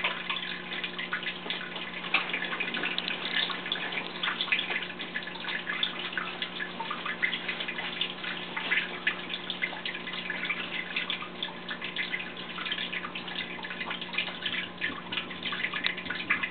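Aquarium water trickling and dripping, a steady crackle of many small drips and splashes over a constant low hum.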